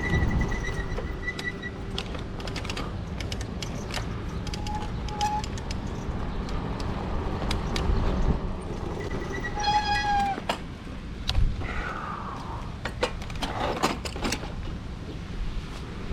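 A few short animal calls over a steady low rumble and scattered clicks. One call, about ten seconds in, falls in pitch, and shorter gliding calls follow a couple of seconds later.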